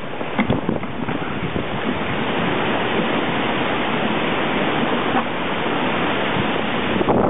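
Strong gusting storm wind rushing through trees and buffeting the microphone. It swells a little after the first couple of seconds and holds there.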